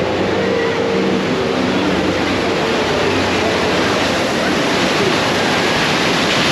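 Rushing, splashing water of a raft ride's artificial river rapids around a round raft, with a steady machine hum underneath that fades out about two seconds in.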